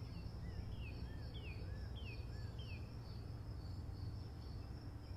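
Outdoor ambience: insects chirping in a steady, pulsing high trill, with a bird repeating a short two-note call about four times over the first three seconds, above a low background rumble.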